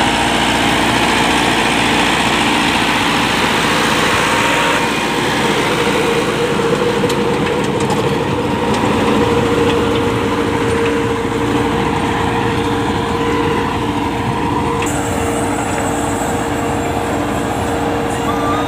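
Massey Ferguson 385 tractor's diesel engine running steadily under load while driving a rear-mounted rotavator through the soil. The sound shifts abruptly about five seconds in and again about fifteen seconds in.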